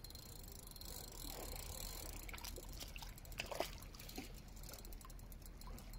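Faint trickling water, with a few soft clicks about two and a half and three and a half seconds in.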